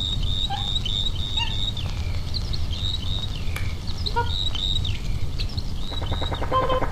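Birds calling with many short, high chirps that bend in pitch, over a steady low rumble. A tonal, music-like sound comes in near the end.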